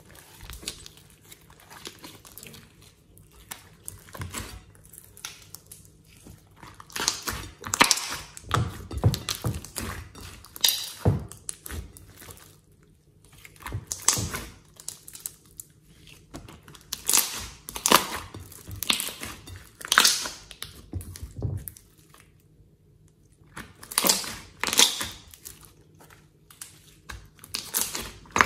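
Hands squeezing and kneading a large mass of glossy slime in a glass bowl: wet squelching with quick crackling clicks in bursts, with short quieter pauses between squeezes.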